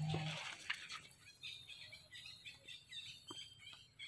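Small birds chirping outdoors: rows of short, high chirps repeating several times a second, starting about a second and a half in. A low voice trails off at the very start, and a few faint ticks sound in between.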